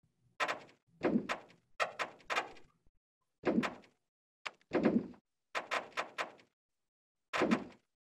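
Sonified earthquake recordings, seismometer signals sped up into the audible range: about ten short thuds, each a sudden hit that dies away within half a second, irregularly spaced. Each thud stands for one small earthquake induced by wastewater injection.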